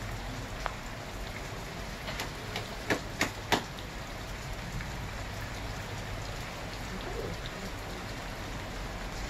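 Steady rain during a storm, an even hiss, with a few sharp taps from about two to three and a half seconds in, the last the loudest.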